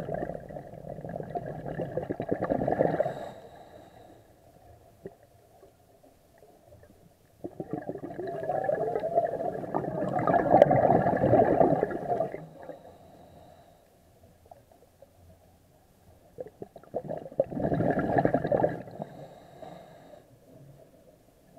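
Scuba diver's exhaled breath bubbling out of the regulator, heard underwater: three long exhalations of gurgling bubbles, each a few seconds long, with quieter gaps between them.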